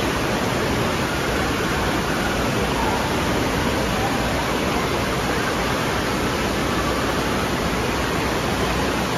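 Water gushing steadily out of a tube water slide's exit into the splash-down pool: a constant, unbroken rushing.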